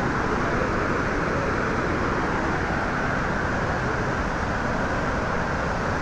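The Salto de Eyipantla waterfall in heavy flow: a great volume of water falling over a rock ledge and churning in the pool below, a loud, steady rushing noise.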